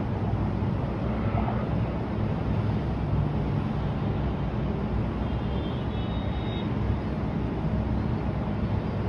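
Steady low outdoor rumble of city ambience, with no music or voices.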